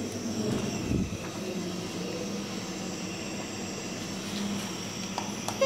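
Steady low mechanical hum, with a low thump about a second in and a few faint clicks near the end.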